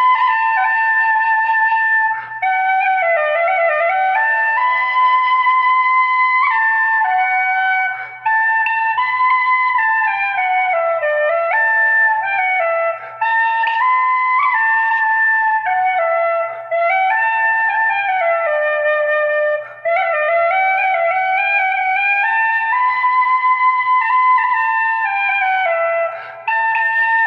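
Irish flute playing a slow, smooth melody, sliding between notes, with short pauses between phrases every few seconds. A faint low hum runs underneath.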